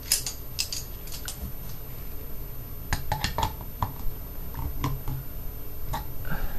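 Pliers clicking and clinking against the metal housing of a diesel throttle body as its rim is squeezed and crimped over to hold the flap assembly shut. The clicks come irregularly, a cluster of them about three seconds in.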